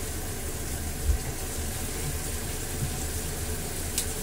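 Shower running at full pressure: water spraying hard from a dual shower head, its flow restrictor removed, onto tile, a steady hiss with a low rumble. A dull thump about a second in and a short sharp click near the end.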